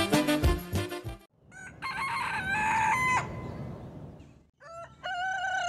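Music with a steady beat cuts off about a second in, then a rooster crows. A second, longer crow begins near the end.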